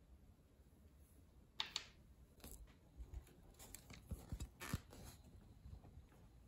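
Faint, scattered taps, clicks and soft knocks of hands handling things at close range, about a dozen, most of them between about a second and a half in and five seconds in.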